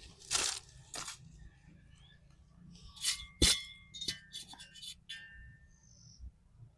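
Cookware and utensils clinking and clattering. Two short scrapes come first, then about three seconds in a run of sharp knocks that ring briefly, followed by a few lighter clicks.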